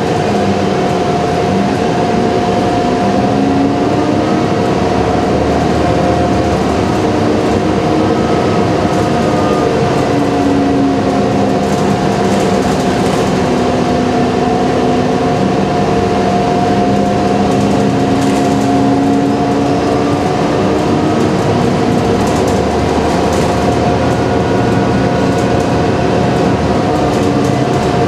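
Inside a moving transit bus: a steady engine and drivetrain drone with road noise, and a lower whine that rises and falls in pitch several times.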